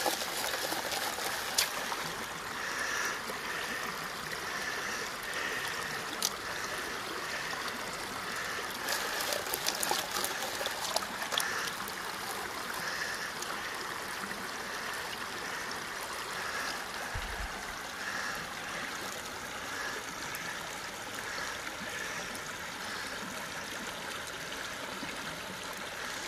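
Shallow creek water running steadily while a plastic gold pan is swirled and dipped in it, the water washing and sloshing over the pan's rim. A few short sharp clicks and splashes come through in the first half.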